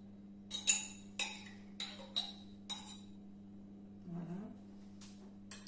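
A utensil clinking against a yogurt pot and the Thermomix's stainless-steel bowl as yogurt is scooped in: about six sharp, ringing clinks in the first three seconds, then fainter handling, over a steady low hum.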